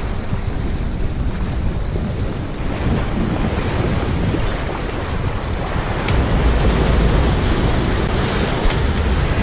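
Small waves washing over a shallow sand flat, with wind buffeting the microphone; the wind rumble grows a little louder about six seconds in.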